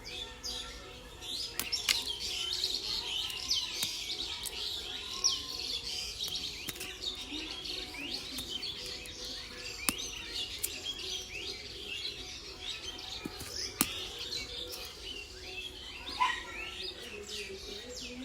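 Many small birds chirping together in a dense, continuous chorus, with a few sharp clicks standing out.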